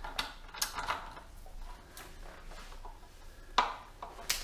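A few sharp metallic clicks and clinks from a torque wrench and socket being worked on a bolt at the bottom of a motorcycle's front fork leg. The two loudest come near the end.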